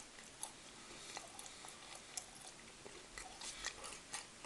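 Faint chewing of a piece of orange dark chocolate, with a few small scattered clicks.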